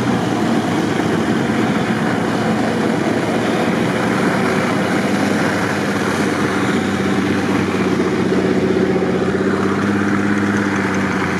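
Off-road 4x4 engines running under load as the vehicles push through deep snow, a steady engine note under a dense noisy wash, with the engine tones coming through more clearly in the second half.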